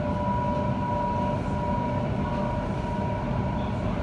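Waratah Series 1 electric train running at speed, heard from inside the carriage: a steady low rumble with a held high tone over it.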